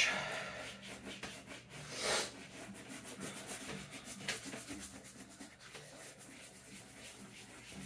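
Stiff shoe brush scrubbing over the oiled leather of a work boot in repeated short strokes, working conditioning oil into the leather; one stroke about two seconds in is louder.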